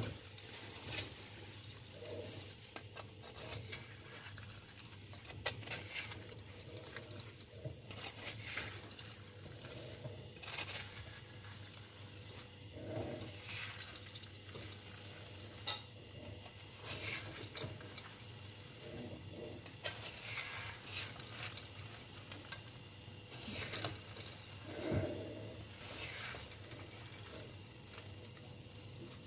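Wooden spatula stirring sugar-coated peanuts in a metal pan: the dry, sugar-crusted nuts scrape and rattle against the pan in irregular strokes.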